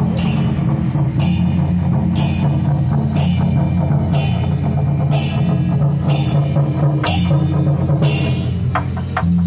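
Loud temple-procession percussion music: drums with cymbal clashes about once a second, over steady low held notes.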